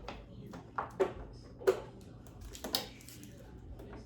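Kitchen items being handled: about four sharp knocks and clacks of hard objects, roughly a second apart, the loudest near the middle, over a faint low hum.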